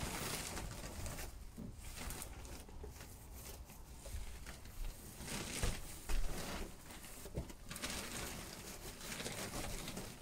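Foil-faced insulation rustling and crinkling as it is fed over wooden ceiling beams, with a couple of sharper knocks about six seconds in.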